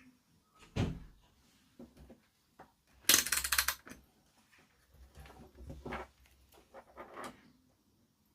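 Handling noises at a workbench: a knock about a second in, a loud rattling scrape around three seconds in, then smaller clicks and rustles.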